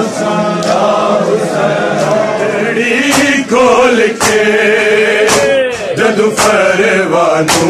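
A group of men chanting a Punjabi noha (mourning lament) together, with rhythmic chest-beating slaps of matam about once a second. The slaps are loudest in the second half.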